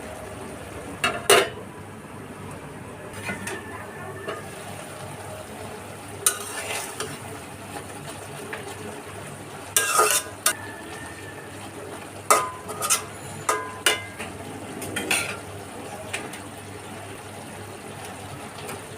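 Food being stirred in a cooking pan: a utensil scrapes and clinks against the pan in short scattered bursts over a steady frying sizzle.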